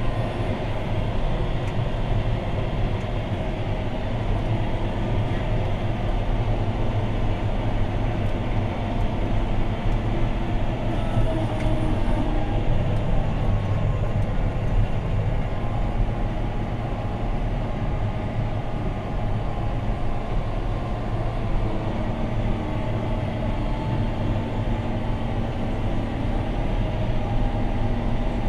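John Deere 6215R tractor's six-cylinder diesel engine running steadily under ploughing load, heard from inside the cab as a constant low drone.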